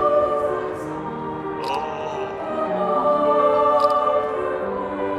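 Background music: a choir singing slow, long-held notes.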